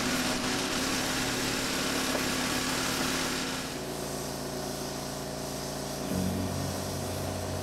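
Gas-engine pressure washer running steadily, its spray jet hissing against weathered barnwood boards for the first three and a half seconds or so. Then the spray hiss drops away and the engine hum carries on, shifting slightly in pitch about six seconds in.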